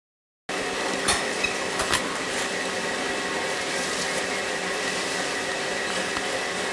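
Steady mechanical hum and hiss of a large gym's room tone, starting about half a second in, with a few light knocks in the first two seconds.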